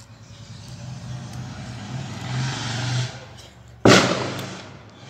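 A motor vehicle's engine nearby, swelling louder for about three seconds and then dropping away, followed just before four seconds in by a sudden loud bang that fades over about a second.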